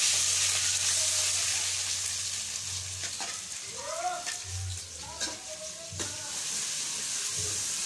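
Sliced onions sizzling in hot oil in an aluminium pot: a loud hiss that is strongest as they go in and eases slowly, with clicks of a spoon stirring them.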